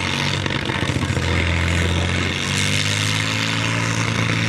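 Helicopter engine, removed from the aircraft and run as a stationary engine, running steadily with a strong hiss over its note. Its pitch steps up about two and a half seconds in.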